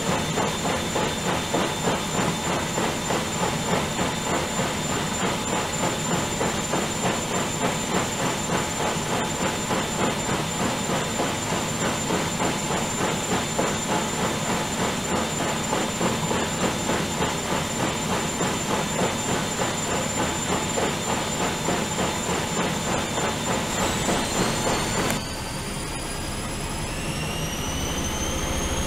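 Bauknecht WAE8575 front-loading washing machine spinning: a steady high motor whine over a rhythmic swish about twice a second. About 25 seconds in the rumble drops suddenly and the motor whine climbs in pitch as the drum speeds up in the spin cycle.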